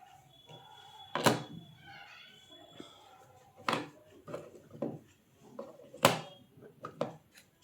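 A series of sharp knocks and clunks from objects being handled, the loudest about a second in and again about six seconds in, with smaller knocks between.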